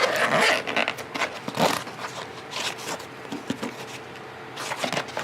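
Fabric tackle backpack being handled: irregular rustling and scraping of the bag's material and pockets, several short bursts in the first three seconds, then quieter.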